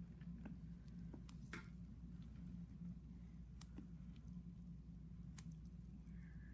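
A few faint, sharp clicks and snips of small metal surgical instruments, about four over several seconds, over a steady low hum.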